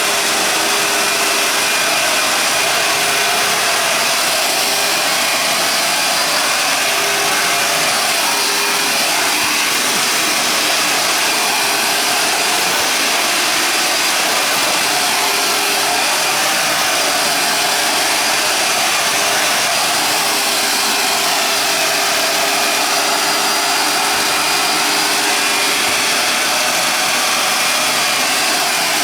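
Vacuum cleaner running steadily: a loud, even rush of motor and air with a faint steady hum under it.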